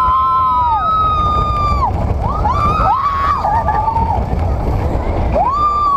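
Roller coaster riders screaming in fear: three long, high-pitched screams, two voices at once in places, over a steady low rumble of the ride.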